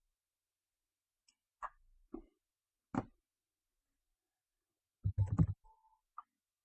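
A few scattered sharp clicks and knocks, then a quick cluster of heavier knocks followed by a brief short beep-like tone and one last click.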